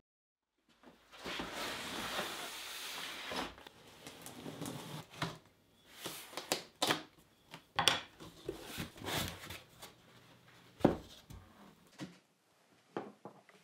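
A large cardboard shipping box being opened: packing tape slit with a knife and the cardboard and packaging handled. A stretch of scraping and rustling near the start is followed by a string of sharp knocks, clicks and thumps.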